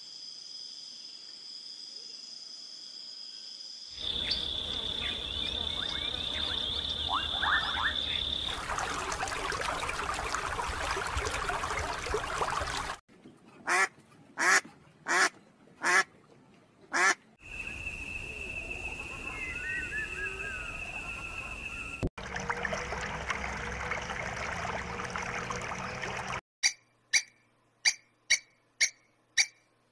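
A series of short animal clips. A steady high whine comes first, then a duck quacks loudly five times, then another steady whine with small bird-like chirps. Near the end a grey squirrel gives quick, evenly repeated chirps, about two to three a second.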